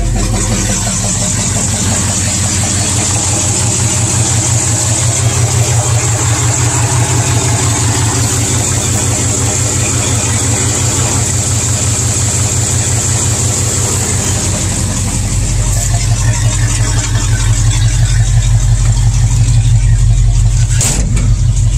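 International Harvester 345 V8 idling steadily, running smoothly with a newly replaced push rod, through an exhaust the owner calls terrible. Its low rumble grows somewhat stronger about two-thirds in, and a single short knock sounds near the end.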